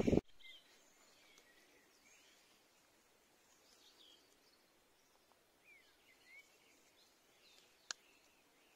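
Faint birdsong: scattered short chirps and quick rising and falling calls, with a single sharp click near the end.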